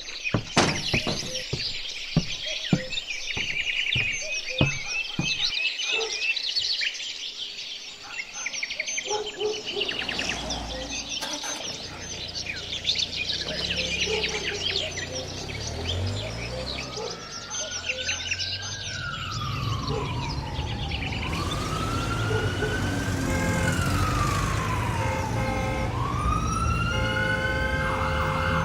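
Birds chirping over a row of regular knocks, about one every two-thirds of a second. From about ten seconds in, a low rumble takes over. Past the halfway point, a wailing siren sweeps slowly up and down in pitch, growing louder and changing to a quicker alternating tone near the end.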